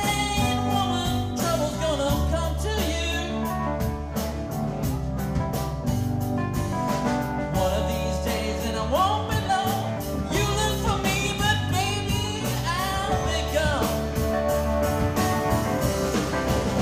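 Live blues-rock band playing: harmonica wailing with bent notes over electric keyboard, electric guitar, a steady bass line and drum kit.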